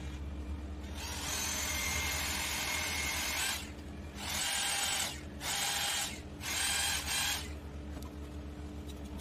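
Electric drill spinning a pink grinding stone against the edge of an aluminium trim strip clamped in a vise, its motor whining: one longer run, then four short bursts on and off. A steady low hum runs underneath.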